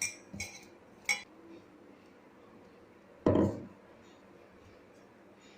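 Kitchen utensils clinking against dishes: three light clinks in the first second or so, then one heavier, duller thud a little after three seconds in.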